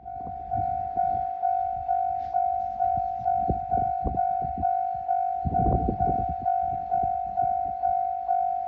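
Japanese railroad crossing alarm ringing its bell tone about twice a second, each strike fading before the next, over irregular low rumbles.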